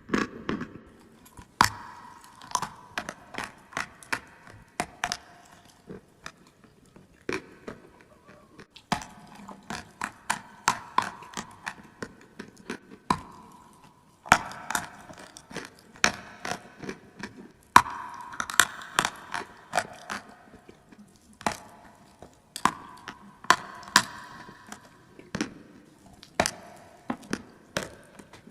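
Close-miked crunching and chewing of clay: sharp crackling bites come in bouts of a few seconds, with short quieter pauses between them.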